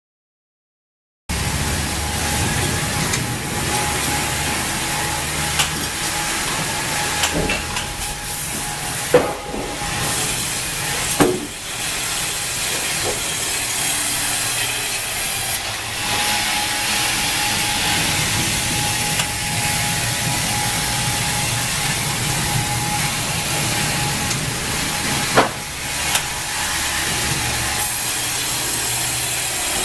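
Wravor industrial band sawmill running: a steady hiss with a thin constant whine, broken by a few short sharp knocks. It starts abruptly about a second in.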